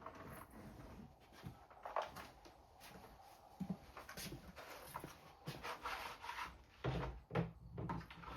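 Hand tools being sorted through: irregular clicks, knocks and rubbing as a tap is picked out of a tap set, with a few heavier knocks near the end.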